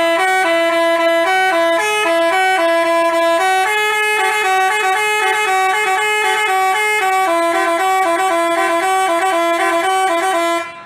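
Basuri multi-tone telolet horn playing a fast, unbroken melody of short notes, loud and clear. It stops abruptly just before the end.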